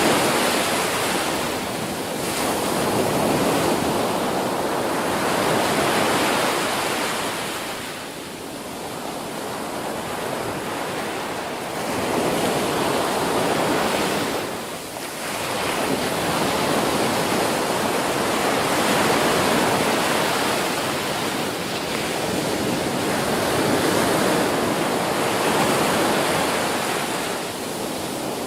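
Ocean surf: waves breaking and washing up a beach in a continuous rush that swells and eases every few seconds, with brief lulls about eight seconds in and again near the middle.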